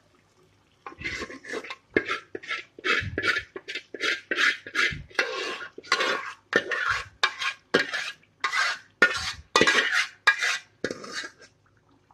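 A metal spoon scraping thick mashed chana daal out of a metal pot in quick repeated strokes, about two a second, with the clink and scrape of metal on metal.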